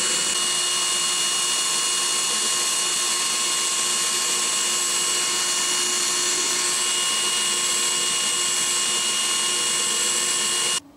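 Greenworks cordless drill running steadily at high speed: a constant whine over a hiss, stopping abruptly just before the end.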